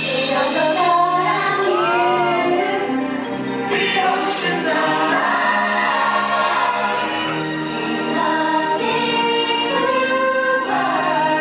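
Song from a live stage musical: several voices singing together as a choir over backing music, their melody rising and falling.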